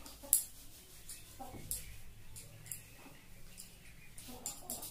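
Long wet hair being rubbed and flicked with a thin cotton gamcha towel: a string of sharp swishes and slaps about once a second, the loudest about a third of a second in.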